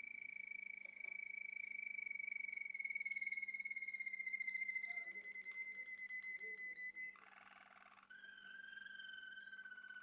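Male Malinois (Waterslager) canary singing: one long whistled note that slowly falls in pitch for about seven seconds, a brief rapid rattle, then another long held note at a lower pitch.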